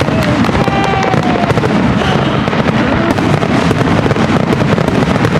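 Fireworks finale: a loud, dense, unbroken barrage of overlapping bangs and crackles.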